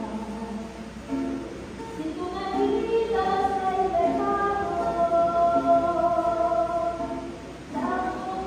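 Communion hymn sung by voices with instrumental accompaniment, in long held notes, with a short break near the end before the next phrase begins.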